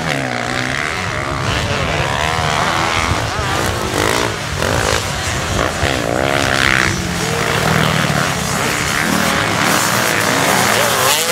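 Several motocross bikes racing, their engines revving up and down at once, with many pitches rising, falling and overlapping.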